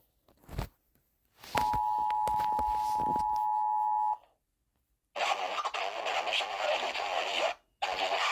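An emergency alert two-tone attention signal, two steady tones sounding together for about two and a half seconds over crackling static, after a short click. From about five seconds in comes harsh crackling static, which breaks off briefly near the end.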